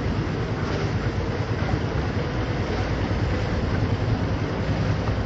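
Steady low rumble and rush of a motorboat under way, its engine running under the noise of water and wind.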